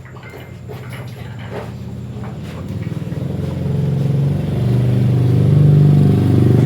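A motor vehicle's engine running, growing steadily louder over the first few seconds and then holding a low, steady drone.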